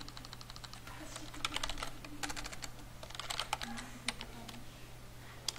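Computer keyboard typing. It opens with a quick, even run of key clicks, followed by irregular keystrokes and one sharper keystroke near the end.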